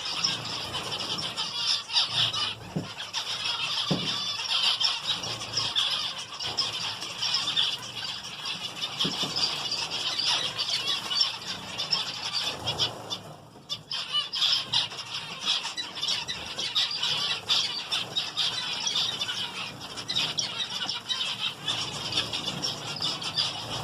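A flock of small aviary finches chattering and chirping continuously, many calls overlapping, with a brief lull about halfway through.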